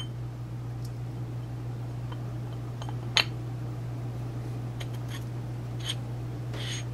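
A steady low hum, with a few light metallic clicks as a greased first-reverse slider gear is slid by hand onto the splined main shaft of a Borg-Warner T90 transmission. The sharpest click comes about three seconds in.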